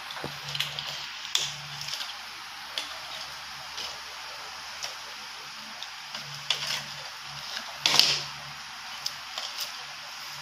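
Plastic twisted rope being handled and worked by hand: light rustles and scattered clicks, with a sharper rustle about eight seconds in, over a steady hiss.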